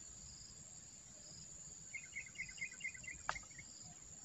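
Steady high-pitched insect drone, typical of crickets, runs throughout. Around two seconds in comes a quick run of about ten chirping notes, and a single sharp click sounds a little after three seconds in.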